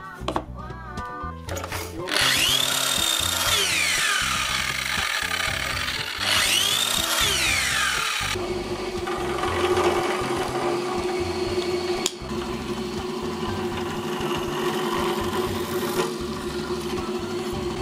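A power mitre saw runs twice, each time cutting and then spinning down with a falling whine. After that a drill press runs steadily, boring into wood, with a sharp click about twelve seconds in. Background music plays underneath.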